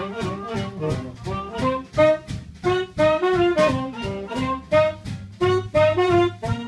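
Swing jazz band playing an up-tempo tune, saxophones and brass carrying the melody over a steady rhythm-section beat.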